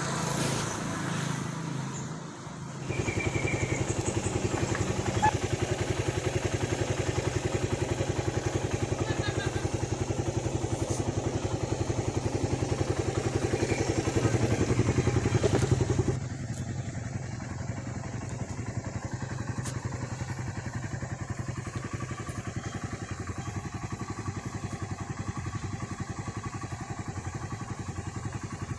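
Factory-stock Suzuki Satria FU's 150 cc single-cylinder four-stroke engine running on its standard exhaust. The engine sound comes in about three seconds in and runs steadily. It rises a little around the middle, then drops suddenly to a quieter, lower level, like settling back to idle.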